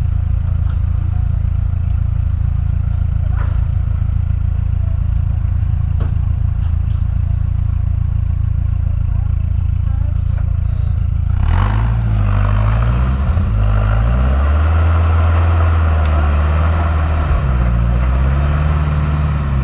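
Off-road rock buggy engine running steadily, then revving up and down repeatedly from about halfway through as the buggy bounces on a rock obstacle. A sharp knock comes where the revving begins.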